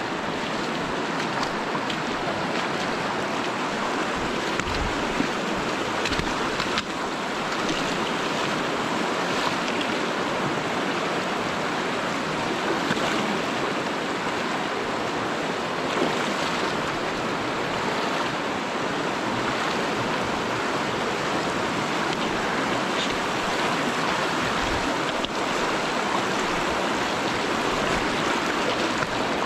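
Rushing river water, the Virgin River's current, as a constant unbroken noise.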